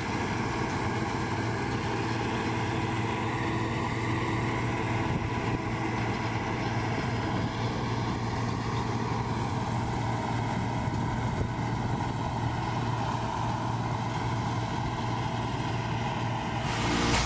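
Bizon combine harvester working under load while harvesting, its engine and threshing machinery running steadily with a low hum. Music cuts in at the very end.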